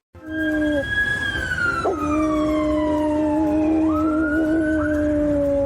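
A dog howling in long held notes, each dropping in pitch at its start, alongside a higher siren wail that slides slowly down and then climbs back up.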